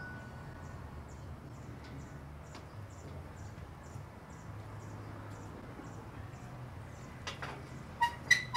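Street ambience: a steady low hum with faint high chirps repeating about twice a second, then a few sharp clicks and clinks near the end.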